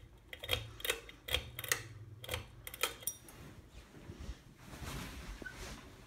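Harbor Breeze Shreveport/New Orleans ceiling fan running with a low steady hum. About seven sharp clicks come over the first three seconds, and a soft rush of noise follows near the end.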